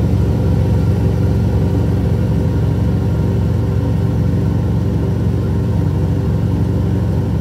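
Laboratory fume hood running, its exhaust fan drawing air: a noisy, steady low rumble.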